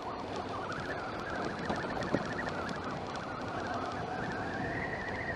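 Triumph Tiger 900 three-cylinder engine running under way on a stony dirt track, with a steady rush of wind and tyre noise. A high whine in its note climbs gradually, and a couple of sharp clicks come about two seconds in.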